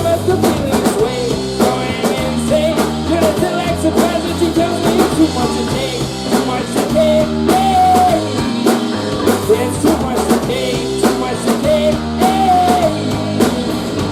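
Live rock band playing: a drum kit keeps a steady beat under guitars, with a melody line carried over the top.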